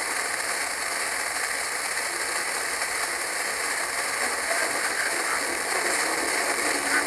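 FM static: a steady hiss from the TEF6686 receiver's speaker as the distant station's sporadic-E signal fades into the noise.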